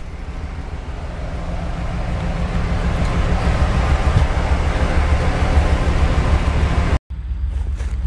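Two-stroke diesel locomotive engine running loudly, heard from inside the locomotive: a heavy, rhythmic low rumble that grows louder over the first few seconds. It cuts off abruptly about seven seconds in, and a quieter outdoor low rumble follows.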